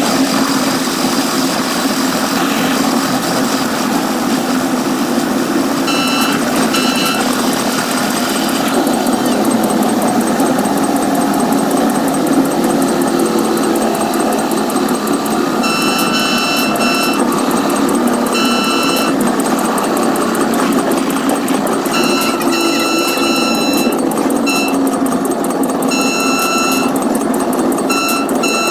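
Fast-forwarded cab-ride sound of a Caltrain commuter train running steadily on the rails. In the second half its Nathan P2 horn sounds a string of short, high-pitched blasts as the train nears a grade crossing and station, with two brief blasts earlier on.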